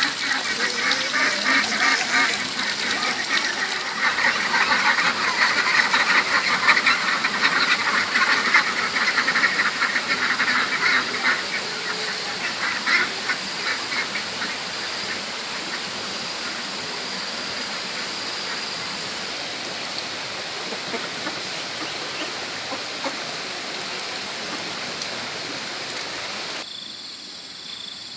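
A flock of farm ducks quacking in a busy, overlapping chorus that thins out and stops about halfway. After that only a steady outdoor hiss of insects remains, changing abruptly near the end to a thin, even cricket-like trill.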